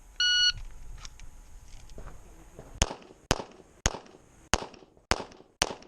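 An electronic shot timer beeps once, and about two and a half seconds later a 2011 pistol in .40 S&W fires six shots, roughly half a second apart, for a weak-hand-only string.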